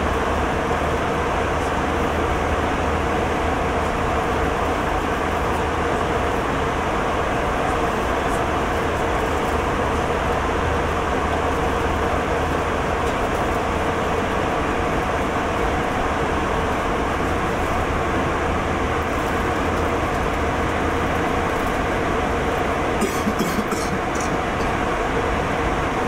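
Steady cabin noise of an airliner in cruise flight: an even rush of air and engine with a low hum and a steady mid tone. The low hum drops away about twenty seconds in, and a few light clicks come near the end.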